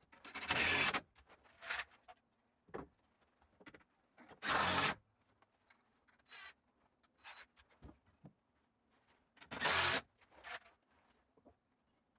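Cordless impact driver running 5/16-inch lag bolts into wooden wall studs in three short bursts of about half a second each, with light knocks and clicks between them.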